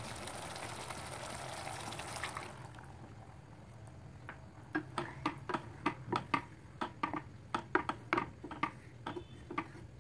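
Water pouring into curry in a nonstick frying pan, stopping about two and a half seconds in; then a wooden spatula stirring, knocking and scraping against the pan in quick irregular taps, two or three a second.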